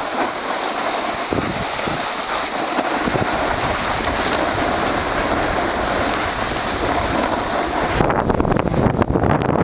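Wind rushing over the microphone of a skier's camera during a fast downhill run, mixed with skis hissing and scraping on groomed snow. About eight seconds in the noise turns rougher and heavier.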